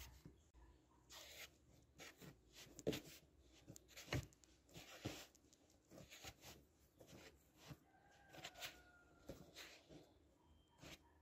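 Hands kneading soft bread dough on a floured wooden board: faint, irregular pats and squishes, about one or two a second.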